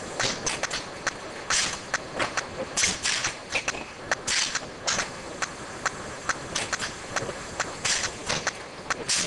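Automatic dual-lane liquid filling machine running: many sharp irregular clicks and clatter of small plastic bottles and machine parts, with short hissing bursts every second or two.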